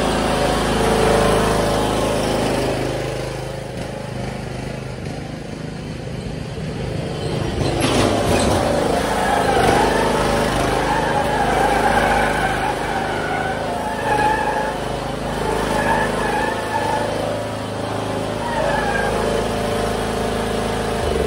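John Deere Z255 zero-turn mower running while it is driven back and forth and spun around on a test run, its sealed Hydro-Gear hydrostatic transmissions freshly refilled with oil. The engine note rises and falls with the driving, and there is a sharp knock about eight seconds in.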